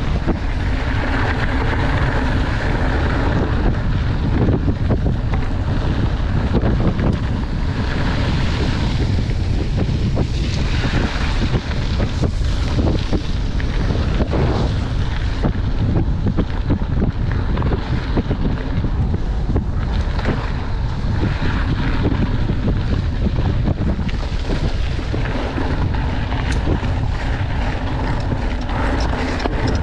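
Steady wind rumble on the microphone of a mountain bike riding fast over gravel and dirt, with tyre noise and frequent knocks and rattles from the bike on the rough ground.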